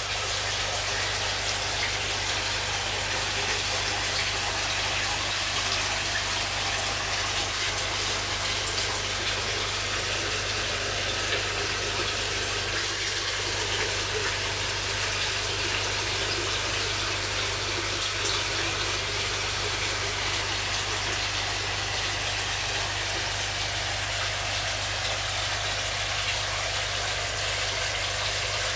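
Water circulating in koi holding tanks: a steady rush of running water over a constant low pump hum.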